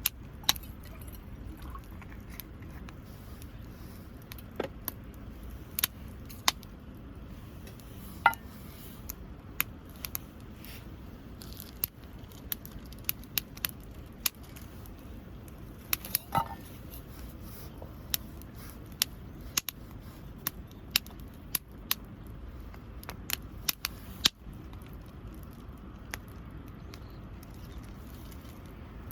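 Wood campfire crackling, with sharp irregular pops about once or twice a second over a steady low rush.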